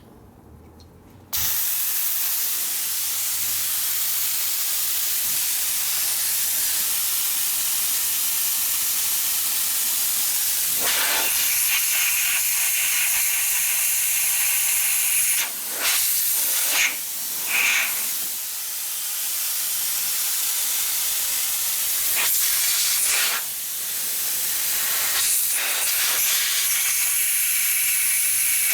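Compressed air from a shop air line hissing steadily as it blasts through a heated fuel strainer, clearing the solder plugging its hole. The blast starts abruptly about a second in and briefly dips a few times.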